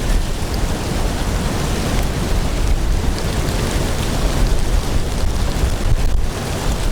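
Steady wind rushing over a windscreened lapel microphone, with a low, uneven buffeting rumble.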